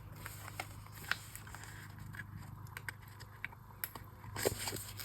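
Light, scattered clicks and taps of sticker sheets and paper being handled on a desk, with a short burst of rustling about four and a half seconds in.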